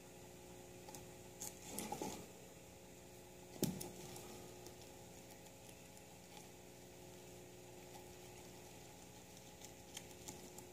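Faint crunching and rustling of a guinea pig chewing curly endive leaves, with a few sharper clicks, the loudest about three and a half seconds in, over a steady low hum.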